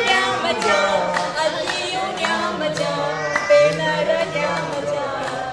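Women singing a Punjabi folk song together, unaccompanied, with hand-clapping keeping time about twice a second.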